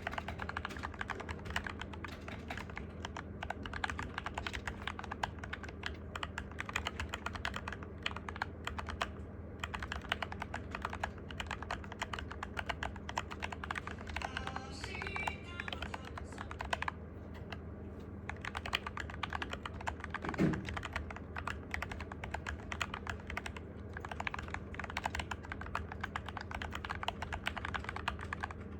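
Fast, continuous typing on a Cygnus keyboard: a dense run of key clicks with a few brief pauses.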